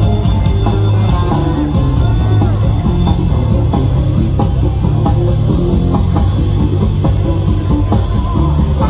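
Live rock band playing: electric guitars, bass and drums, with steady drum hits and a bending guitar lead line.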